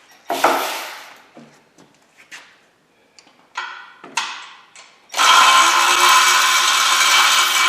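Milwaukee cordless electric ratchet with a socket runs steadily for about two and a half seconds, starting about five seconds in, working a torque converter bolt. Before it, a few short clinks and knocks of tools being handled.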